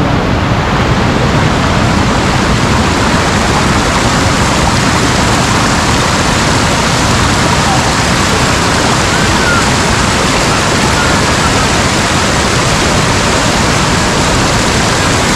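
Waterfall: a steady, loud rush of falling water, with faint voices in the background.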